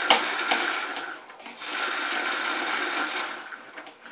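Vacuum cleaner whirring as it is pushed, cutting out for a moment about a second in and fading away near the end, with a couple of sharp clicks at the start.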